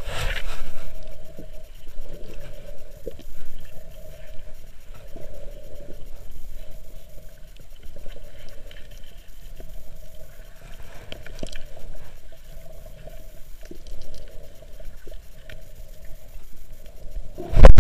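Muffled underwater sound picked up by a camera beneath a lake's surface: water movement with a steady low hum and scattered faint knocks, as hands hold the carp and work the hook free.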